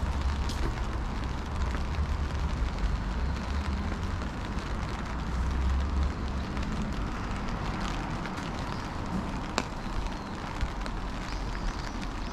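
Steady rain hiss with a few sharp drips, under a low rumble of passing traffic that fades about halfway through.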